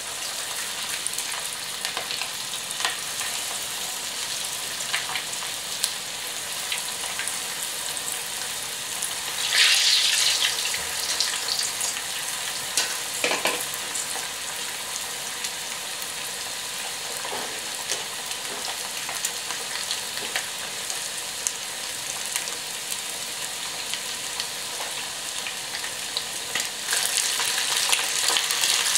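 Flour-coated chicken breast pieces deep-frying in oil at about 180 °C: a steady sizzling crackle. About ten seconds in the sizzle flares louder for a second, and it grows somewhat louder again near the end.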